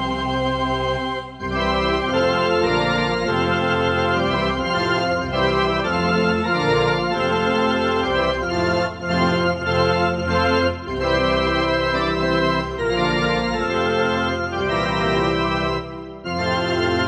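Yamaha electronic keyboard on an organ voice, playing a hymn tune in sustained chords, with short breaks between phrases about a second and a half in and near the end.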